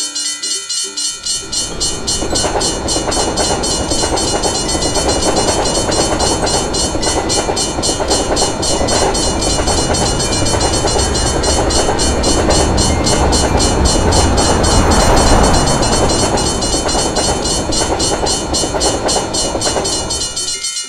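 Railway level-crossing bell ringing with rapid, even strokes while a train passes through. The train's rumble and clatter build from about a second in, are loudest about two-thirds of the way through, and cut off suddenly at the end.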